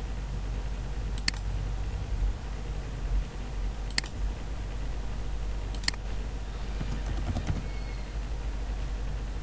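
A few sharp single clicks of a computer mouse or keyboard, about two seconds apart, with some brief handling noise near the end, over a steady low hum.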